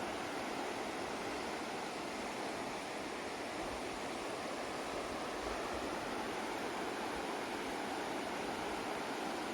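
River water flowing and rushing in a steady, even wash of sound.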